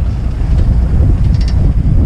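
Loud wind buffeting the camera microphone: a steady low rumble.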